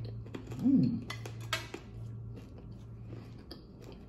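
Eating sounds at the table: a fork clinking and scraping on a plate, a short closed-mouth 'mm' that rises and falls in pitch about a second in, and small mouth clicks. A steady low hum runs underneath.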